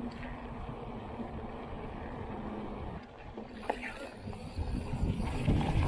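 Wind rumble on the microphone and tyres rolling as a mountain bike rides along a trail, with a faint steady hum for the first few seconds. The sound changes about halfway through, and the rumble grows louder near the end.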